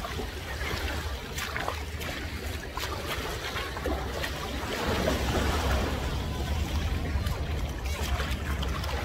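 Small waves lapping and trickling at the sandy shoreline, over a steady low rumble.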